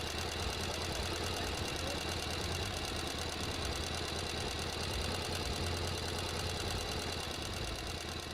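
Sewing machine running steadily at speed, a fast, even stitching rhythm that eases off a little near the end.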